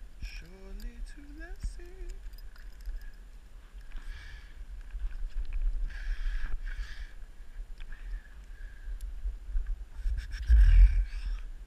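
Wind and handling noise on a head-mounted camera as a climber moves against a tree trunk, with a low rumble throughout and a loud low thump-like surge near the end. A person's voice is heard briefly near the start.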